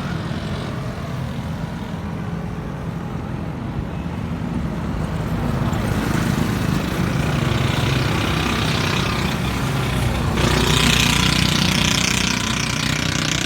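A motor vehicle engine running steadily at low speed, with a louder rushing hiss that starts suddenly about ten seconds in.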